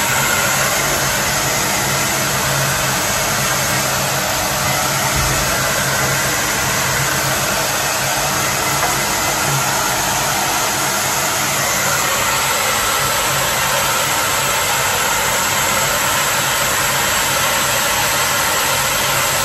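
Handheld hair dryer running steadily close by as it dries a small dog's wet coat: a continuous rush of air over a low motor hum.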